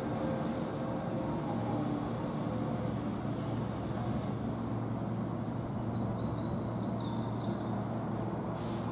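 Keihan 2200-series electric train pulling slowly out of the station, with a steady low hum from its motors and wheels. Faint high squeals come from the wheels about six to seven seconds in, and a short burst of air hiss sounds near the end.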